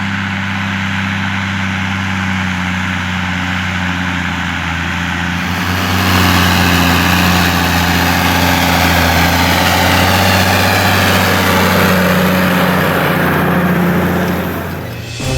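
New Holland M115 Turbo tractor's six-cylinder turbo-intercooled diesel running at a steady pitch. About six seconds in it gets louder, with a broad hiss added, and it drops away near the end.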